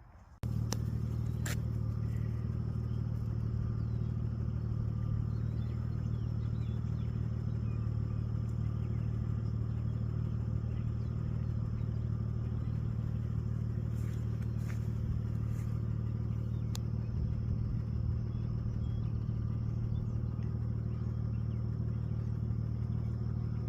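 A steady, unchanging low motor hum, like an engine running at constant speed, with a few faint chirps and clicks over it.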